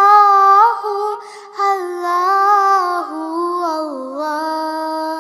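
Background song: a high solo voice holding long, wavering, ornamented notes, with a short break about a second and a half in.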